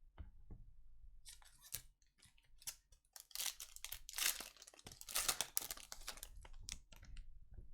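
Trading card pack being torn open, its foil wrapper tearing and crinkling in two long crackling stretches in the middle, with light clicks of cards being handled before and after.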